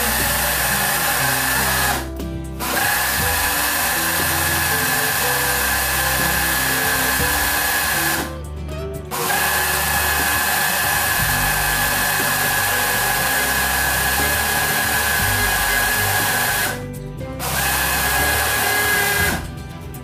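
Personal blender running at full speed, a steady motor whine as it blends liquid in its tall cup. It cuts out for about half a second three times and stops near the end.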